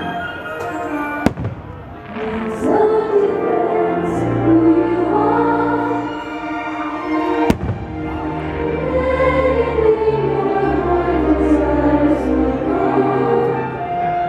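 Fireworks show soundtrack music played loud over the park speakers, with firework shells going off: two sharp bangs, about a second in and halfway through, and several short hissing launches.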